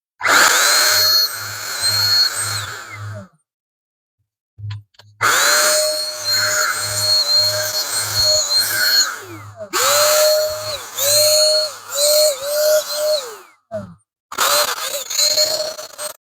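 700-watt handheld HVLP paint sprayer running in several spells of a few seconds, its motor whine rising as it starts, dipping briefly now and then and falling away as it stops, with a hiss of spraying air. The spells are separated by abrupt silent gaps.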